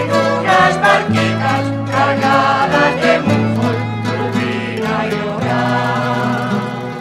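A Spanish rondalla playing a popular song: plucked laúdes and guitars with a violin, accompanying a mixed choir singing together.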